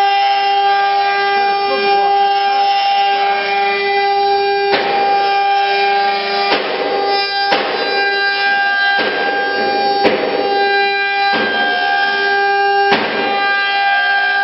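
Router spindles of an eight-spindle CNC wood lathe running with a steady whine. From about five seconds in, a rush of cutting noise comes every second or so as the bits carve into the wooden table-leg blanks, with three sharp clicks along the way.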